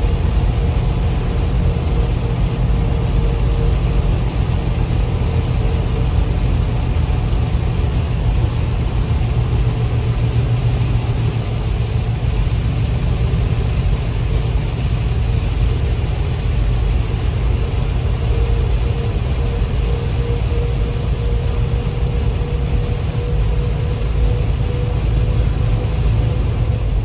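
Steady diesel engine drone and road noise inside a tractor-trailer's cab while driving on a wet highway, with a faint steady hum above the rumble.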